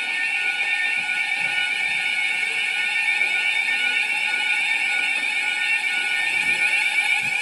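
Fire alarm sounding continuously: a loud, steady, high-pitched tone with no breaks.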